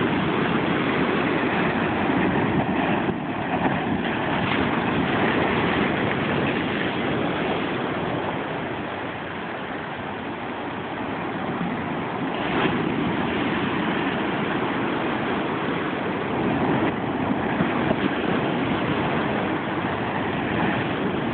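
Ocean surf washing in over a low rock ledge and breaking against it, a steady rushing noise that swells and eases with the waves.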